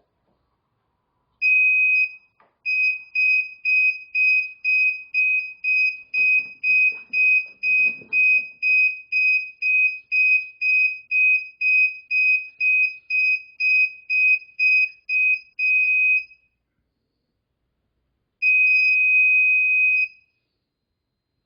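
A hoverboard's built-in buzzer beeping in one high pitch. A single beep is followed by a fast run of short beeps, about two a second, for some fourteen seconds, then after a pause one long beep.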